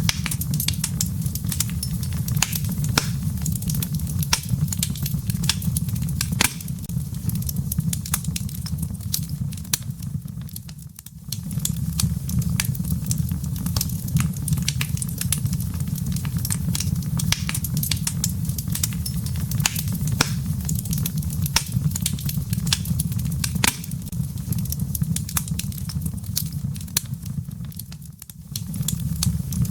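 Wood fire crackling in a fireplace: a steady low rumble of the flames with frequent sharp pops and snaps from the burning firewood. The sound dips briefly twice.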